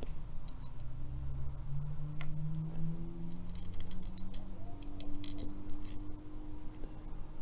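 Light scattered metal clicks and ticks of a padlock's cylinder parts and small tools being handled while it is taken apart, with a quick run of clicks a little past the middle. A low steady hum runs underneath.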